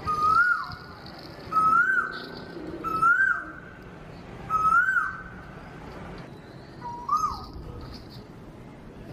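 A repeated whistled call, five times: each a short held note that rises and then drops sharply, the last one pitched a little lower.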